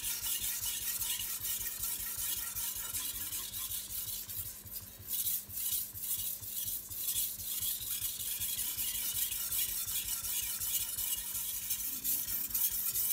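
Steel knife blade scraping back and forth on a wet 500-grit Shapton Glass whetstone in quick strokes during sharpening, with a few more widely spaced strokes about halfway through.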